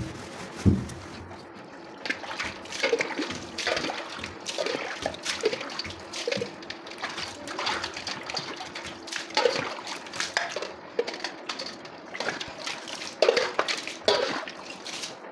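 Water splashing and swishing as a wet stainless-steel cooker panel is wiped down by hand, in irregular strokes, with two dull thumps near the start.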